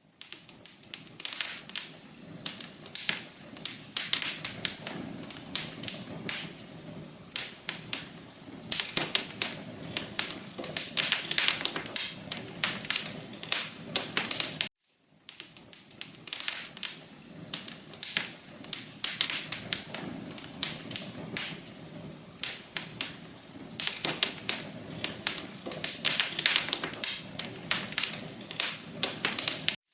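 Wood fire crackling in a fireplace: dense, irregular snaps and pops over a soft hiss. The sound drops out for a split second about halfway through, then carries on.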